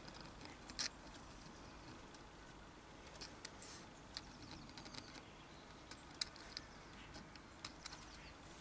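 A handful of faint, light clicks and taps from a steel rule being handled against an aluminium lathe backplate, the clearest about a second in, over quiet workshop room tone.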